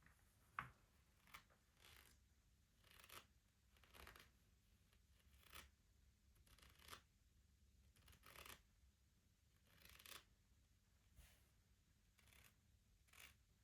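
Fingers softly scratching and brushing across the wood of a Shut the Box game, in a string of short swishing strokes about one every second or so, with one sharp click about half a second in.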